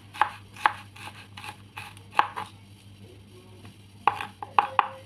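A kitchen knife chopping garlic on a cutting board. A run of sharp strikes comes about two a second and thins out after about two seconds, then three quick strikes follow near the end.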